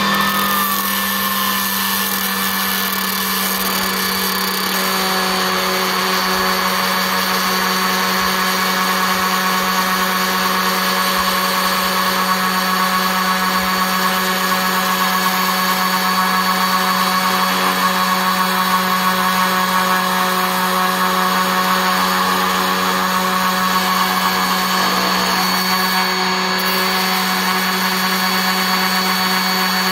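Ridgid 18-volt cordless orbital sander running steadily, set upside down as a bench sander, with a small wooden block held against the spinning sanding disc. It gives a steady motor hum with a constant low tone throughout.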